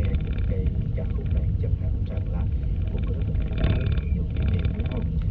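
Steady low vehicle rumble, with faint muffled voices under it.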